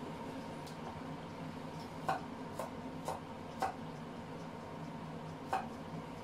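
Knife knocking on a wooden cutting board while garlic is chopped: a few sharp, unevenly spaced knocks between about two and five and a half seconds in, over a steady low hum.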